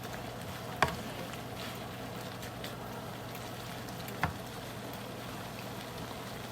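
Pork cooking in seasoned sauce in a pan, a steady quiet bubbling with faint crackles, and two sharp clicks, one about a second in and one about four seconds in.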